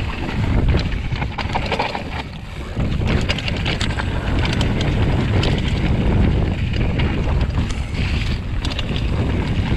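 Wind buffeting the microphone over the crunch and clatter of tyres on loose slate, with a hardtail mountain bike rattling on a rough descent: a steady rumble dotted with many sharp clicks.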